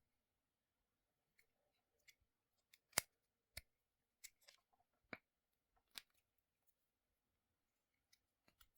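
A few short, sharp snips and clicks, scissors cutting a rubber bike-tire sleeve, spaced irregularly about a second apart, the loudest about three seconds in.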